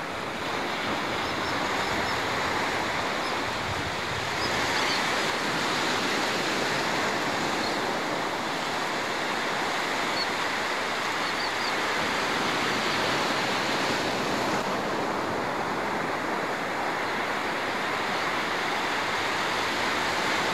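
Ocean surf breaking on a beach: a steady rush of waves that cuts off suddenly at the end.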